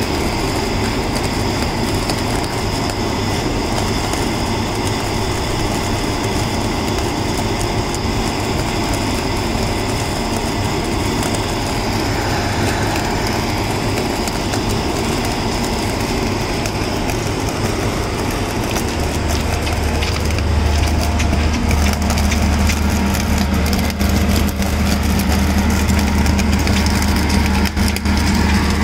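Holland mobile flash butt rail welder flashing a rail joint: a continuous dense crackling as the rail ends arc and throw sparks, over the machine's steady running. About two-thirds of the way through a deep hum joins in and the sound grows a little louder.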